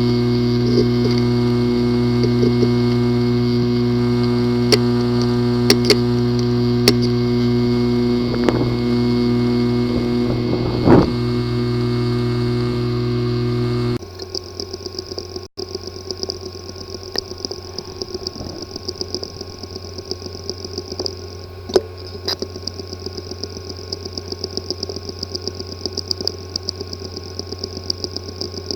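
A hard drive with physical damage to its disk assembly, running and making abnormal sounds. At first it gives a steady hum with scattered ticks. About halfway through it changes abruptly to a quieter, fast buzzing chatter.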